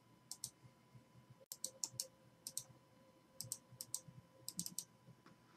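Faint, irregular clicking of a computer mouse and keys, often in quick pairs, as text is copied and pasted into a spreadsheet.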